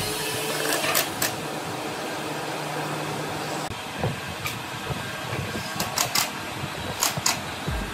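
Wooden moulding strips knocking against each other and the machine table as they are handled: a few sharp clacks in small groups of two or three, over steady workshop noise.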